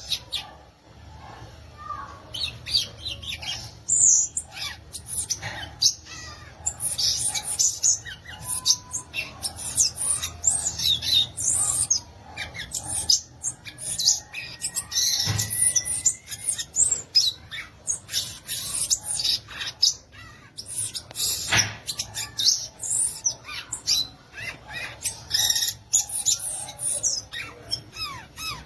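Violaceous euphonia (gaturamo-verdadeiro) singing: a long, dense run of rapid, high twittering and chattering notes with a short whistled note about halfway through. Two sharp knocks cut in, one about halfway and one later, over a steady low hum.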